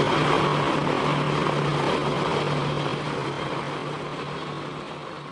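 Propeller aircraft engine drone, a steady throbbing hum that fades away over the last couple of seconds.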